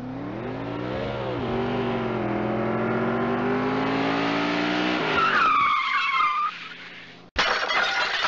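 Car crash sound effect: a car engine revving up with slowly rising pitch, then tyres screeching about five seconds in and fading, followed by a sudden loud crash near the end.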